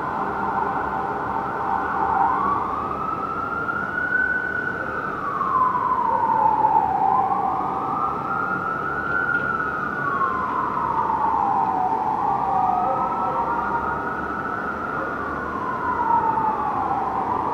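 Fire apparatus sirens on wail, each rising and falling slowly over about five seconds. A second siren wails out of step with the first in the latter half.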